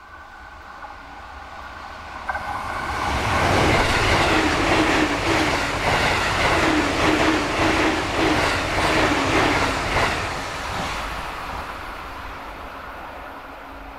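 Passenger train passing at over 100 km/h. The noise builds for about three seconds and stays loud for about seven, with a rhythmic clatter of wheels over rail joints, then fades as the train draws away.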